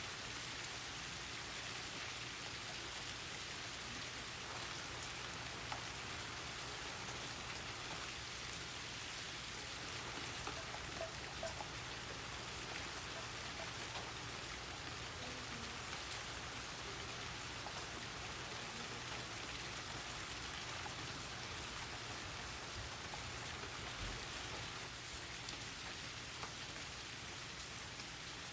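Steady rain falling, with many individual drops ticking on surfaces.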